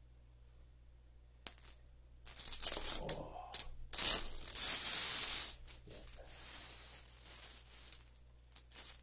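Clear protective plastic film being peeled off a monitor's glossy plastic bezel: a sharp click about one and a half seconds in, then a few stretches of hissing, ripping noise, the longest and loudest about four to five and a half seconds in.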